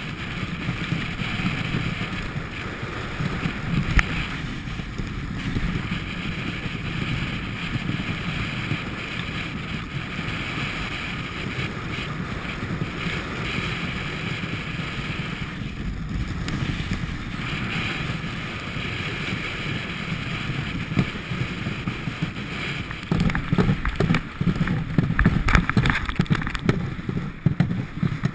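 Dog sled runners sliding and scraping over ice in a steady rush, with wind buffeting the camera microphone. Near the end the sled rattles and knocks as it runs onto rough, bare ground.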